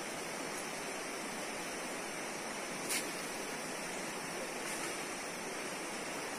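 Steady rushing of river water, with one short sharp click about three seconds in.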